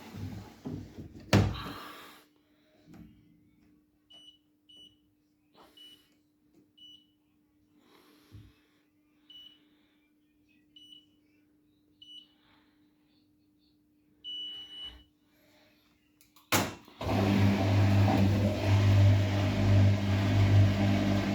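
Vestel front-loading washing machine: a thud as the door is shut, then a string of short beeps as the program buttons are pressed and a longer beep on start. After a click, a steady hum with a rushing noise sets in as the machine begins to fill with water.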